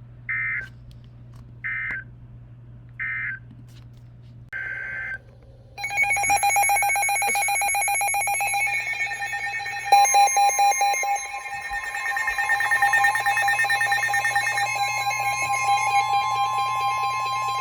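Emergency Alert System signal on NOAA Weather Radio. Three short chirps of digital header data come at even spacing, and a fourth follows a moment later. About six seconds in, a loud, harsh alert tone starts and holds, and a second tone joins it about ten seconds in. The signal marks the start of a new severe thunderstorm warning.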